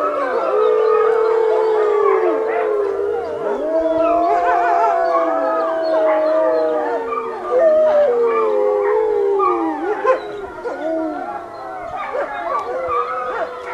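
A pack of wolves howling in chorus: several long howls overlap at different pitches, mixed with shorter rising and falling calls, and the chorus thins out after about ten seconds.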